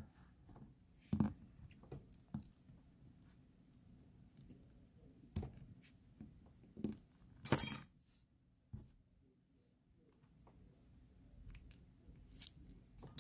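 Scattered small metal clicks and taps from a Master Pro Series padlock's brass core being handled with tweezers and a plug follower while it is taken apart, with one louder, ringing metal clink about halfway through.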